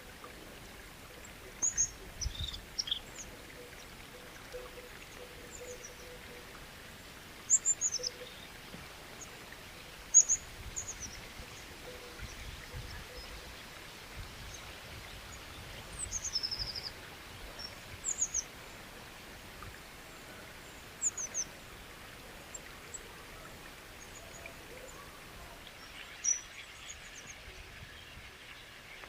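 Birds giving short high chirps every few seconds over a steady hiss of flowing water.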